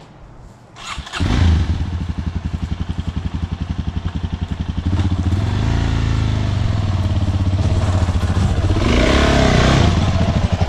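Dual-sport dirt bike engine starting about a second in, then running at low revs with an even pulsing beat. The revs rise twice, around five seconds in and again near the end, as the clutch is feathered so the engine pulls the bike up a ramp.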